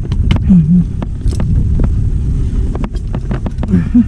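A machine engine running steadily, with irregular sharp knocks and clanks over it and two brief shouts.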